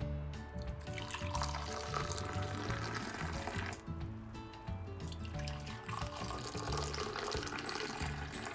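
Kitchen tap running into the sink in two stretches, a few seconds each, over background music.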